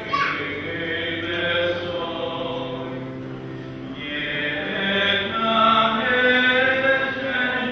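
Voices singing a slow church hymn or chant, holding long notes; it quietens briefly in the middle and swells again towards the end.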